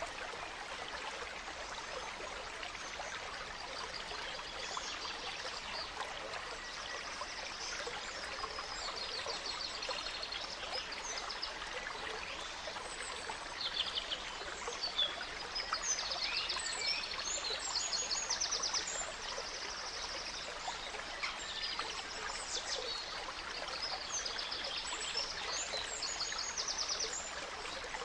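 Small stream trickling steadily, with songbirds singing over it in short, fast trills and chirps that are busiest in the middle.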